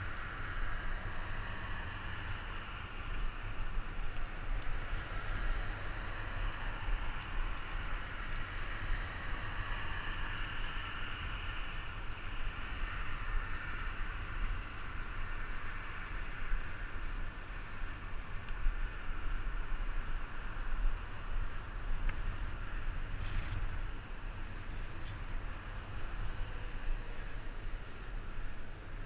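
Wind buffeting the microphone of a helmet camera on a moving bicycle, a steady low rumble, over the continuous rush of traffic from the highway running alongside.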